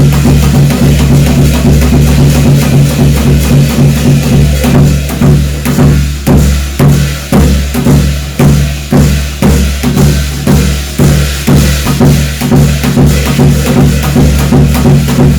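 Korean shamanic gut ritual music: drums beaten in a steady, driving rhythm, about two strokes a second, over a steady low drone.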